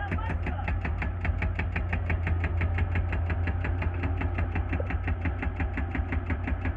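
Excavator's diesel engine running steadily, with a regular rapid ticking of about seven clicks a second over it.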